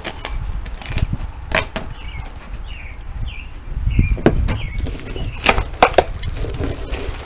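Clear plastic wrap rustling and crinkling as it is handled and pulled aside, with several sharp clicks and knocks of parts shifting in the box.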